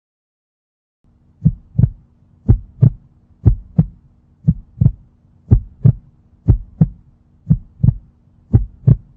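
Heartbeat sound effect: paired lub-dub thumps about once a second, starting about a second in, over a faint steady hum.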